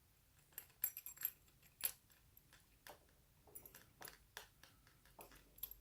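Small metal lock parts clicking and tapping as they are handled: scattered light clicks, with a few sharper ones in the first two seconds.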